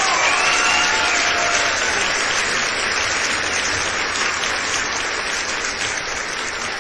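A crowd applauding steadily, with a few high calls rising and falling over it in the first second or so, easing off a little toward the end.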